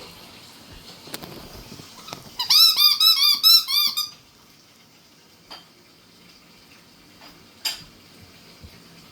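Chihuahua puppy giving a quick run of about eight short, high-pitched squeaky whines, about two seconds in and lasting under two seconds. A few faint clicks follow.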